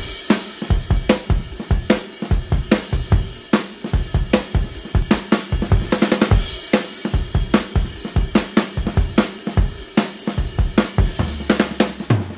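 Background music with a steady drum-kit beat: kick drum, snare and hi-hat.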